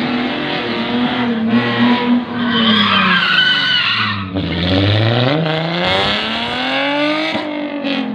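Drift car's engine revving hard, its pitch rising and falling with the throttle, while the rear tyres spin and squeal through a smoky slide. A high wavering tyre squeal stands out about three seconds in. Just after four seconds the revs fall away, then climb steadily before dropping sharply near the end.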